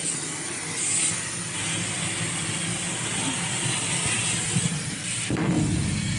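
Water spraying onto a rooftop unit's condenser coil to wash it, a steady hiss with a short break about five seconds in.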